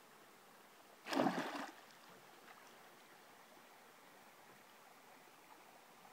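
A short splash about a second in as a released northern pike swims off at the surface, followed by faint steady water noise.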